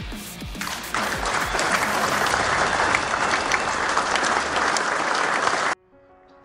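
Water splashing and churning close to the microphone as a hand lets a small brown trout go at the stream's surface: a loud, even splashy hiss that starts about a second in and cuts off suddenly near the end.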